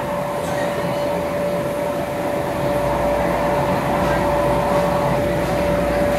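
Electric air blower and drive of an inflatable mechanical surf-simulator ride running steadily: a constant whirring rush with one steady hum.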